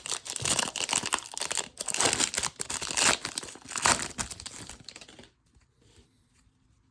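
Foil wrapper of a Panini Prizm baseball card pack crinkling and tearing as it is ripped open, for about five seconds, then stopping.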